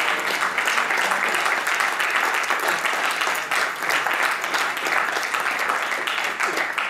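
A small crowd applauding: steady, dense clapping.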